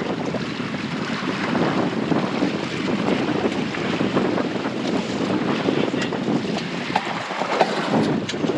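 Wind buffeting the microphone over the rush of sea water along the hull of a small sailboat under sail during a tack, with a few scattered clicks.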